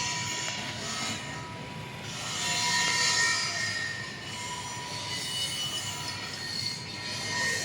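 Metalworking in a repair shop: a steady, high-pitched metallic squeal over a hiss, swelling loudest about three seconds in.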